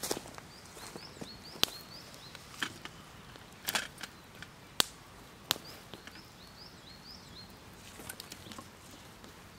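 Small wood campfire crackling with several sharp, separate pops. A small bird repeats short rising chirps in three brief runs.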